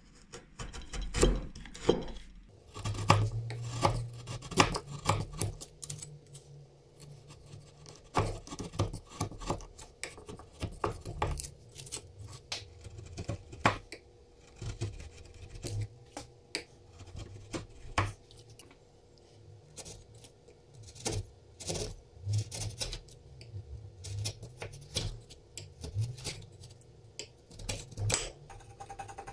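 Bench chisel paring end grain and walls inside the mortise of a quartersawn beech plane body: irregular short slicing and scraping cuts, each with a crisp crackle as shavings come off.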